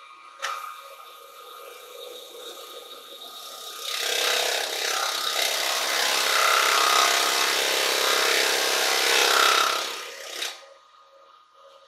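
A cloth pressed against a silver birch bowl spinning on a wood lathe, rubbing in wax: a loud, steady rubbing hiss for about six seconds that cuts off suddenly. Under it the lathe runs with a faint steady hum, and there is a sharp click about half a second in.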